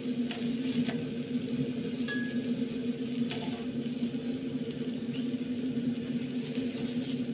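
Metal kitchen tongs clinking several times against a steel pot and foil while roasted tomatoes are picked up and dropped into the pot, with one brief metallic ring about two seconds in. A steady low hum runs underneath.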